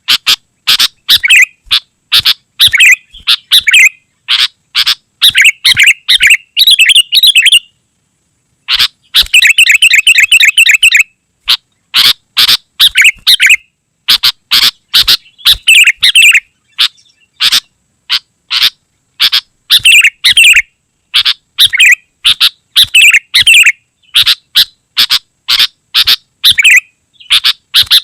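Sooty-headed bulbul (kutilang) singing fast and almost without a break, a dense run of short chirps and warbled phrases. It pauses briefly about eight seconds in, then breaks into a quick rattling trill.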